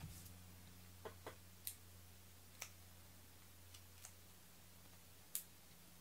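Near silence with about six faint, scattered clicks and taps of card stock and small paper pieces being handled on the work mat, the loudest just past five seconds in, over a faint low hum.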